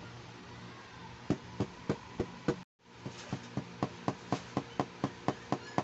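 Fingers tapping on a hard plastic toy carry case, an even run of about three to four taps a second, cut off by a brief silence a little over two and a half seconds in, then carrying on.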